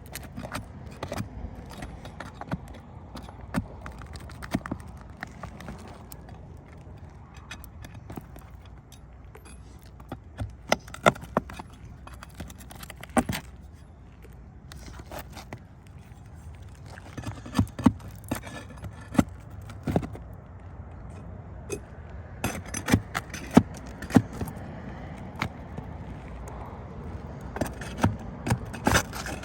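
Hand tools prying up asphalt shingles and pulling roofing nails: irregular sharp clicks, clinks and scrapes that come in clusters of several strikes.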